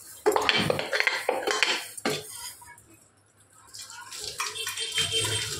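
Steel utensils clattering and scraping against each other and a stainless steel sink as they are scrubbed, in a quick run of knocks. About four seconds in, tap water splashes steadily over a steel pot as it is rinsed.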